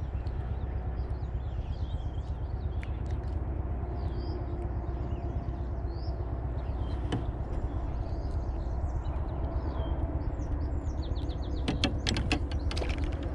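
Steady low rumble of wind on the microphone, with small birds chirping throughout from the pond's shore. A few sharp clicks come close together near the end.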